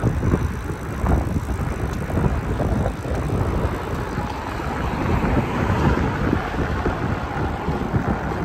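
Wind buffeting the microphone of a camera carried on a moving bicycle: a steady, gusting low rumble with a hiss that swells slightly about halfway through.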